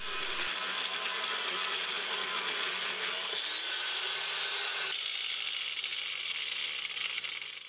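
Angle grinder with a thin cut-off disc cutting through an old steel railroad spike: a steady, high grinding whine that changes in tone twice along the way and cuts off abruptly near the end.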